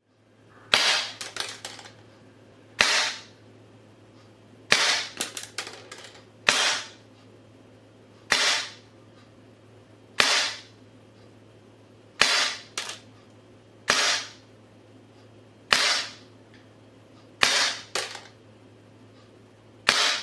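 Armorer Works M712 gas blowback airsoft pistol, powered by green gas, firing single shots about every two seconds, about eleven in all. Some shots are followed by a quick clatter of smaller clicks.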